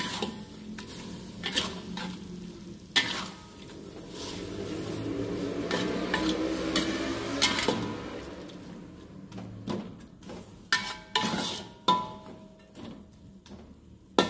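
A metal spatula scraping and knocking against a metal wok as shredded chicken is stirred and tossed, with the food sizzling. The stirring and sizzling grow louder in the middle, and several sharp clanks of the spatula on the wok come near the end.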